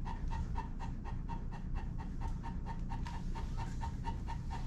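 German Shepherd panting fast and steadily, about five breaths a second.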